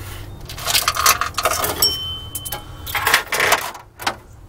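Loose metal parts clinking and rattling as they are handled: several short clattering bursts, with a brief ringing metallic note about two seconds in and a single knock near the end.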